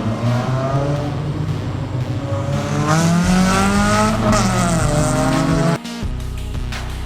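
A car engine revving, its pitch rising to a peak about four seconds in and then falling away, over background music; the engine sound cuts off suddenly about six seconds in, leaving the music.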